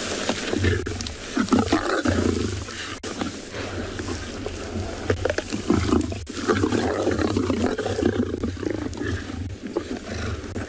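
Lions growling in deep, repeated pulses as they feed together on a warthog carcass, with the tearing and chewing of flesh and bone underneath.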